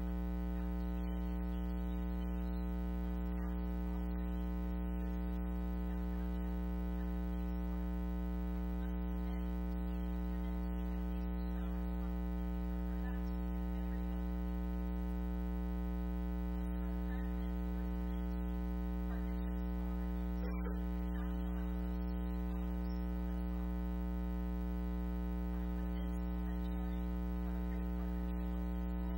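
Steady electrical mains hum: an unchanging low buzz with many evenly spaced overtones that fills the sound and buries any speech.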